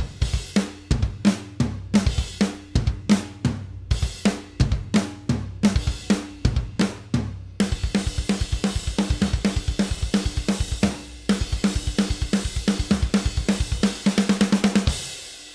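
Soloed raw multitrack recording of a rock drum kit playing a steady beat of kick, snare and hi-hat. Cymbals wash in about halfway through. Near the end a fast fill of rapid hits cuts off, leaving the kit ringing out.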